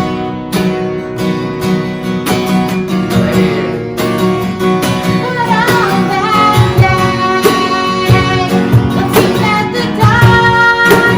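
Worship band music: acoustic guitar strumming steadily in a regular rhythm over bass, with a wavering melody line coming in about halfway through.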